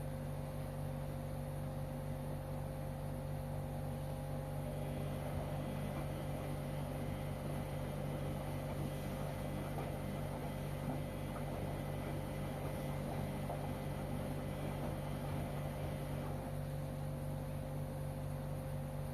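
LG washing machine running through its wash cycle: a steady electrical-mechanical hum, with a rougher swishing noise rising in the middle and easing off near the end.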